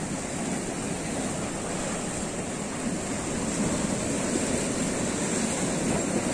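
Sea surf breaking and washing over rocks in a steady rush of water.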